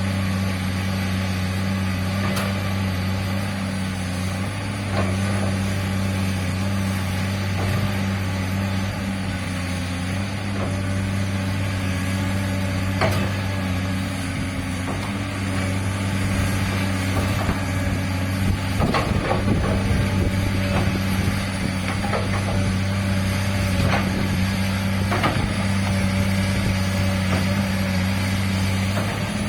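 Komatsu PC200-8 excavator's six-cylinder diesel engine running steadily, a constant low hum, with a few sharp knocks as the machine works.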